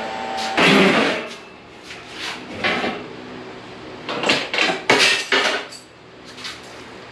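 Welded steel square-tube windmill stand being handled and tipped, giving a series of metal knocks and clanks. The loudest comes about a second in, and a quicker cluster follows about four to five and a half seconds in.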